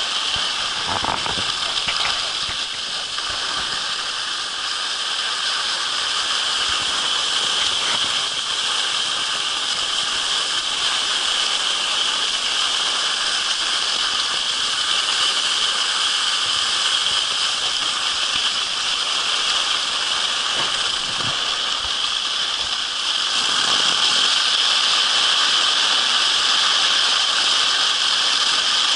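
Skis hissing steadily over snow at speed as a husky tows the skier, with wind rushing over the microphone. The hiss gets louder near the end.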